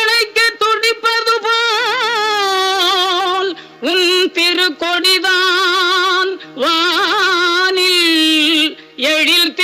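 A woman singing a Tamil devotional hymn in long, wavering held notes with wide vibrato, over a steady low held accompaniment note.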